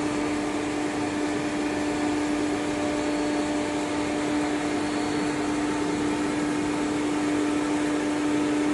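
CNC router's ATC spindle running at a steady speed after cycle start: a constant whine over a rushing air hiss.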